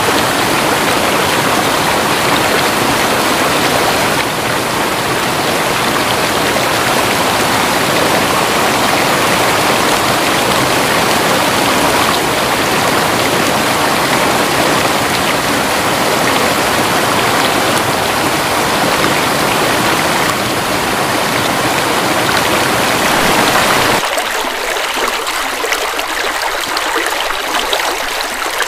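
River water rushing steadily over rocks. About 24 seconds in, the sound abruptly turns lighter and thinner, losing its low rumble, like a different, smaller stretch of flow.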